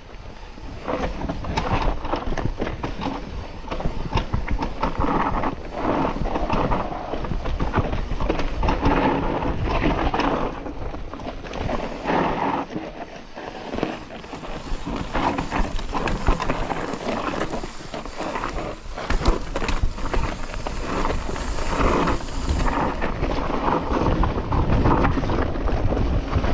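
Mountain bike riding down a steep, loose, dry dirt trail: tyres crunching and sliding over loose dirt and rock, with constant clattering of the bike and wind noise on the microphone.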